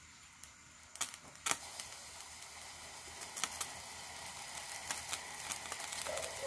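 A thin film of liquid in the bottom of a pot heating on the stove, crackling and sizzling and growing steadily louder. A couple of sharper pops come about a second in.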